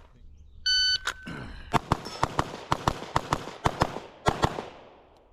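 Shot timer beeps once to start the string, followed by a rapid string of about a dozen pistol shots over roughly three and a half seconds. The string ends with the pistol run empty.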